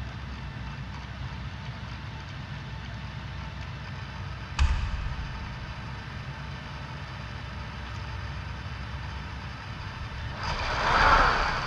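A six-legged motion platform carrying a large cube, working under a steady low rumble: one sharp clunk about four and a half seconds in, then a hiss that swells and fades near the end.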